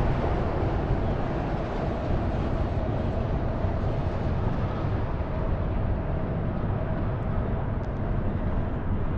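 Steady low rumble of a distant engine with a faint constant hum running through it.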